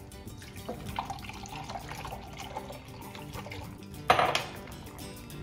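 Chicken stock pouring from a carton into a glass measuring cup, a steady trickle of liquid. A short, louder noise comes about four seconds in.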